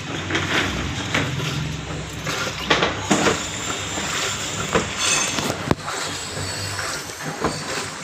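LG top-loading washing machine running, its motor humming and water churning in the tub, with a few knocks. It is washing again after a faulty capacitor that had stopped the wash and spin was replaced.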